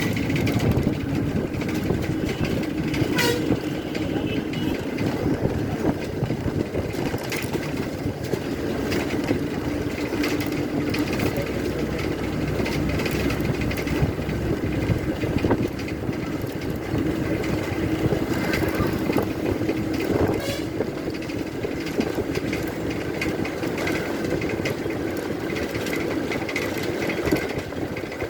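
Tamil Nadu government bus under way: the diesel engine drones steadily beneath road rumble, and the bus body rattles and clatters constantly.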